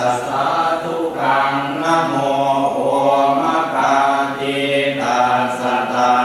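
Buddhist chanting in Pali, voices reciting on a steady, nearly level pitch with short breaks between phrases.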